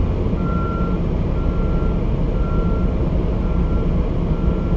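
Reversing alarm of a large multi-axle mobile crane beeping steadily, about one beep a second, as it backs up, over the low rumble of its engine.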